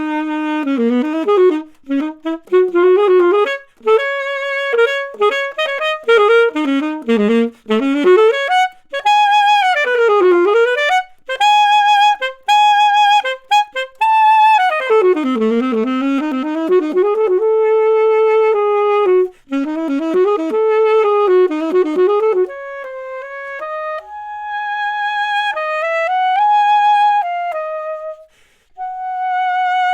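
Solo saxophone playing a jazz-style melody, with quick runs and notes that bend and slide in pitch; from about two-thirds of the way through it softens to quieter held notes. No accompaniment.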